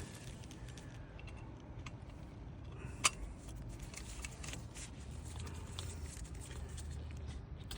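Quiet handling of small metal ignition parts being fitted into a distributor, with scattered light ticks and one sharp click about three seconds in.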